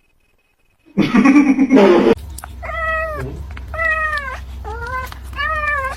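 A cat meowing four times in short, arched calls, after a loud, rough burst of noise lasting about a second near the start.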